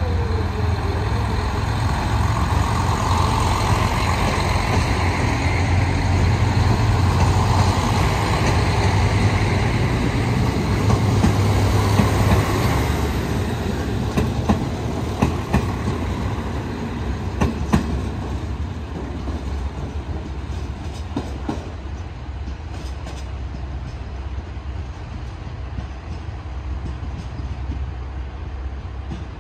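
JR Shikoku diesel railcars, a KiHa 185 among them, running slowly through a station: a steady diesel engine rumble, then a few sharp wheel clacks over rail joints about halfway through as a train moves off. The sound dies down in the last third.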